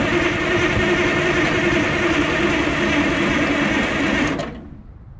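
Starter cranking a 1980 Michigan Clark 55B loader's Detroit Diesel two-stroke engine. It turns over steadily for about four and a half seconds without starting, then stops and winds down quickly. The battery is low, which the owner takes for the reason it won't start.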